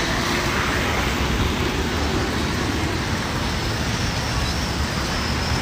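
Steady road traffic noise, a continuous low rumble with hiss.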